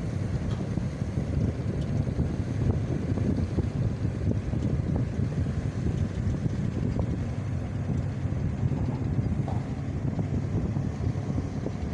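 Steady low rumble of a boat engine out on the river, mixed with wind buffeting the microphone.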